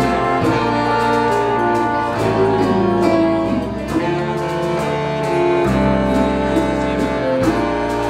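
Live salsa band playing: sustained chords over a bass line, with steady percussion strokes.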